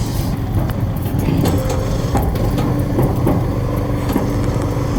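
Riding lawnmower engine running steadily while towing across the yard, with a few light clicks or rattles.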